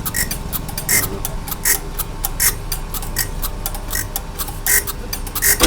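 Band saw blade flash butt welding machine running: a steady electrical hum with a short sharp click-buzz repeating about every three-quarters of a second.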